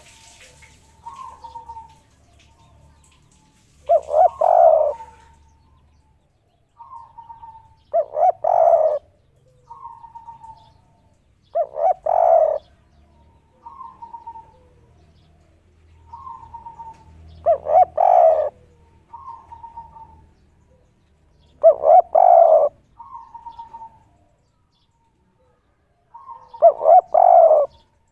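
Spotted dove cooing its 'kuk 3' song: six loud cooing phrases about four to five seconds apart, with softer single coos in between.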